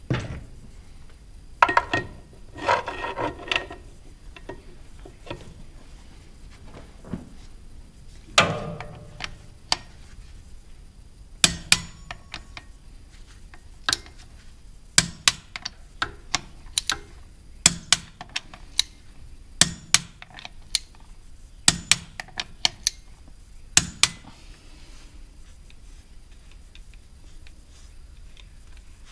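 Torque wrench tightening bolts on a Vermeer 502 stump grinder's clutch: a series of sharp metallic clicks, many in close pairs about every two seconds, as each bolt reaches torque, after a short clatter of tools near the start.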